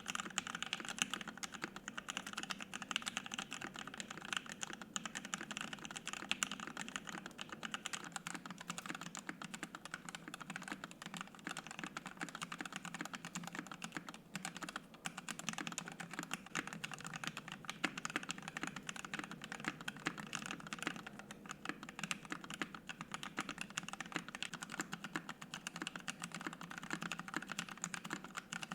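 Continuous fast typing on a Savage65 65% custom mechanical keyboard with an FR-4 plate, lubed switches and PBT keycaps, a dense run of keystroke clacks that eases off briefly about halfway through.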